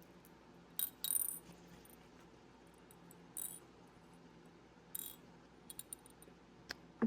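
Scattered short clicks and rattles of small Czech pressed glass bellflower beads being handled in their bags, the loudest cluster about a second in.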